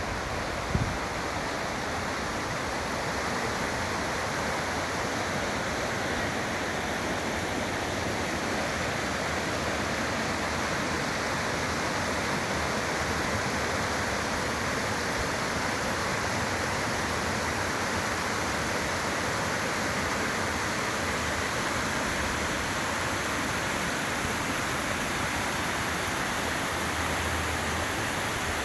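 Waterfall pouring steadily over rocks: an even, unbroken rush of falling water. There is a brief low thump about a second in.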